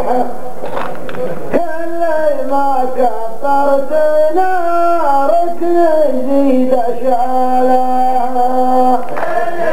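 Men's voices chanting a qalta verse together in a slow, unaccompanied melody. The notes are held and move in steps. One phrase ends early on and a new phrase starts about one and a half seconds in.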